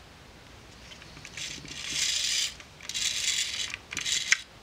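Ricoh Auto Half's film-advance mechanism winding 35mm film onto the take-up spool in three short scratchy whirring runs, the last ending in a click.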